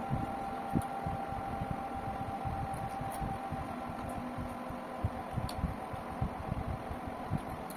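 Steady hum of an electric fan with a faint steady whine, over soft, irregular low thuds of eating by hand and chewing.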